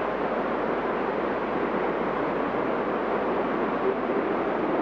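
Steady, even hiss of background noise with no speech and no distinct events.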